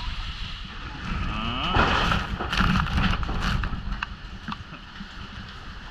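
Hurricane wind buffeting the microphone as a steady low rumble, swelling into a louder rushing, clattering gust about two seconds in, with a few sharp knocks after it.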